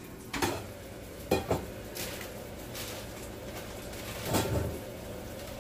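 Kitchenware handled: a handful of separate clinks and knocks of dishes and utensils, the loudest and fullest near the end, over a steady low hum.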